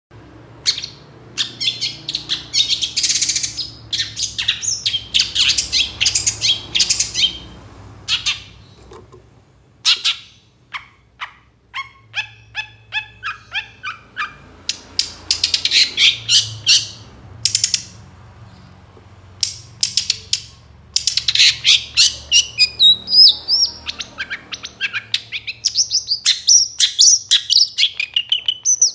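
Long-tailed shrike (cendet) singing a loud, varied song of rapid chirps and harsh rasping notes, with a quick run of repeated notes about twelve seconds in and a warbling phrase near the end, used as a calling song to set other shrikes singing.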